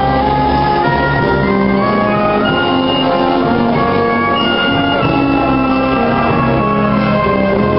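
An orchestra playing ball music, with held notes moving steadily from chord to chord.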